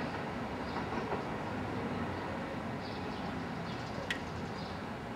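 Seibu 10000 series limited-express train running along the tracks, a steady rumble of wheels on rail, with one sharp click about four seconds in.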